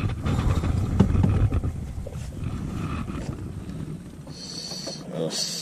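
Low rumble of wind buffeting the microphone, mixed with handling noise, which eases off after about four seconds. Two short high hisses come near the end.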